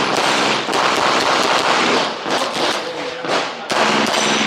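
Rapid 9mm pistol fire from a CZ Tactical Sport: quick strings of shots with brief pauses between them, as the shooter engages targets in an IPSC course of fire.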